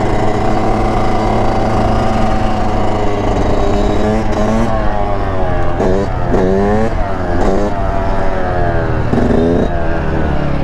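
Yamaha YZ125 two-stroke dirt bike engine running hard during a wheelie, its pitch rising and falling again and again as the throttle is worked, with a steady low rumble of wind on the helmet microphone underneath.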